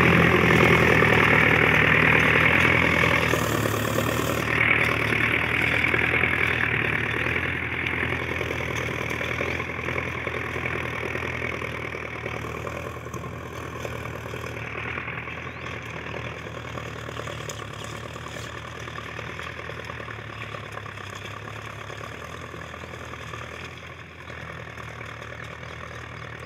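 Sonalika DI-750 tractor's diesel engine running steadily under load while pulling a plough. It fades gradually as the tractor moves away.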